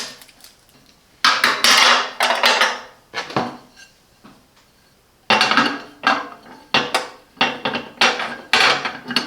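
Glass microwave turntable plate being fitted into the oven cavity: repeated clinks, knocks and scrapes of glass on plastic and metal, a pause about four seconds in, then a busier run of clattering as it is seated.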